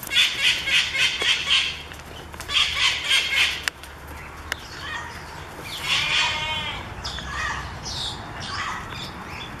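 Birds calling: two runs of rapid, harsh repeated notes, about four a second, then a drawn-out call with several wavering tones about six seconds in, followed by a few fainter calls.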